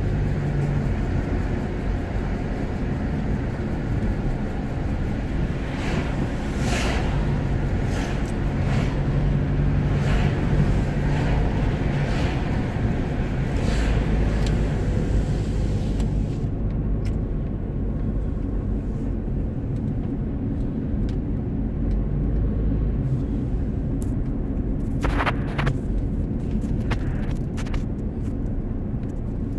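Car driving, heard from inside the cabin: steady engine and road rumble, with a few brief knocks or clatters from the road.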